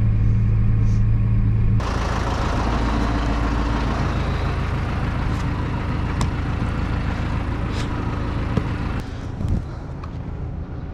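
Tractor diesel engine running steadily. For the first two seconds it is heard from inside the closed cab; then it is heard from outside beside the tractor, where a dense rushing noise lies over the engine. The sound drops a little about nine seconds in, with one short knock.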